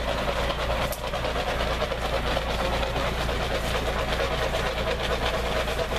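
Tour wagon's engine running steadily, with a rattling undertone.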